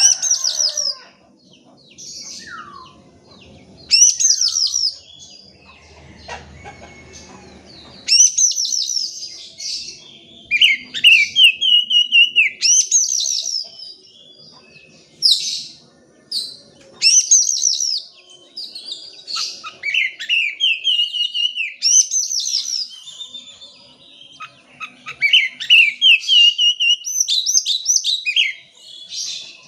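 Oriental magpie-robin (kacer) singing in repeated bursts of a second or so, each a fast run of sweeping, downward-sliding whistled notes, with short pauses between bursts.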